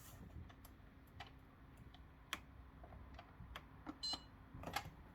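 Buttons clicking on a Whirlpool dishwasher's control panel as its programs are stepped through, with one short electronic beep about four seconds in, over a faint steady hum.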